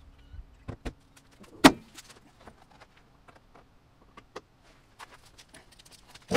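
A single loud slam about a second and a half in as the hood of a 2012 Ford Flex is shut, followed by scattered light clicks and knocks of the phone being reached for and handled, with a sharper knock near the end.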